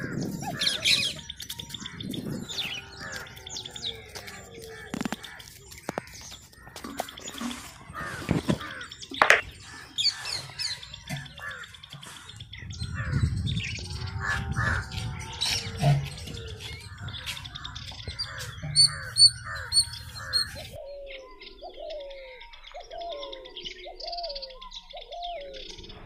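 Birds chirping and calling, mixed with a few sharp clicks and some low handling noise. Near the end, a bird gives a run of about six short calls in a row, each falling in pitch.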